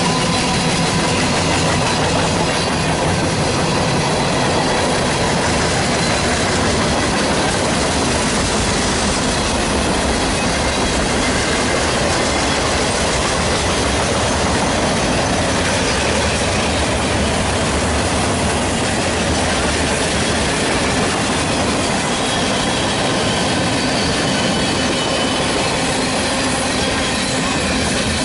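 CSX freight train's covered hoppers and boxcars rolling past close by: a steady, loud rumble and rattle of wheels on rail, with faint high wheel squeals coming and going.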